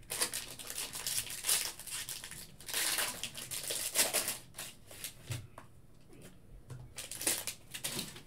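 Foil wrapper of a Panini Playbook football card pack being torn open and crinkled by hand, in bursts over the first five seconds, then quieter with a few light clicks as the cards are handled.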